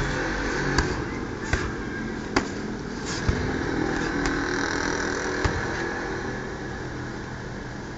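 Punches landing on a hanging heavy bag: about six sharp smacks, roughly one a second, stopping about six seconds in. Under them a motor vehicle's engine runs steadily.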